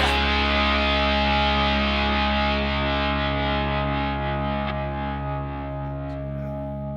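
A distorted electric guitar chord held and ringing out, slowly fading: the closing chord of a rock song.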